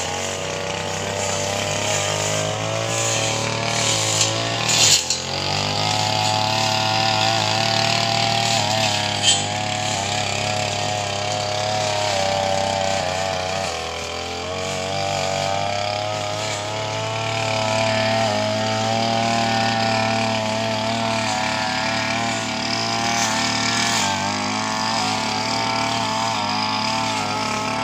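A small engine running steadily, its pitch wandering slowly up and down over a low hum. A few short knocks come about four to five seconds in and again around nine seconds.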